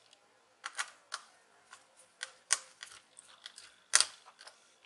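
Light plastic clicks and taps, about a dozen at irregular intervals with the sharpest about four seconds in, as a Samsung 500P laptop's plastic speaker enclosure is handled and seated back into the palm-rest frame.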